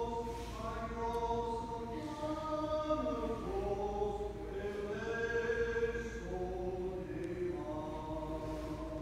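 Unaccompanied Byzantine liturgical chant, voices singing held notes that step from pitch to pitch.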